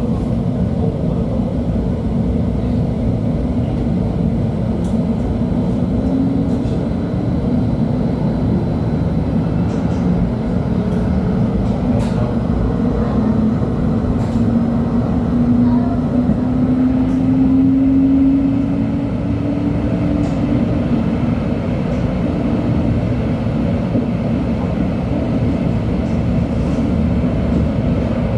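LHB TW2000 Stadtbahn light-rail car running, with a steady rumble of wheels on track. A whine rises slowly in pitch through the middle as the car picks up speed, then fades about two-thirds of the way through.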